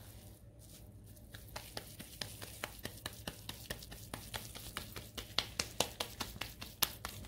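Hands patting and pressing a moist chicken and chana dal kabab mixture between the palms to shape patties. Small quick pats start about a second and a half in, come several times a second, and grow louder near the end.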